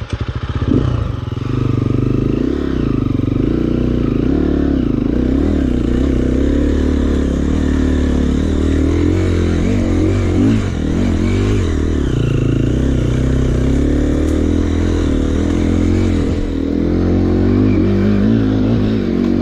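KTM EXC 350's single-cylinder four-stroke engine running hard under load as the bike climbs a rough trail, the revs rising and falling with constant throttle changes.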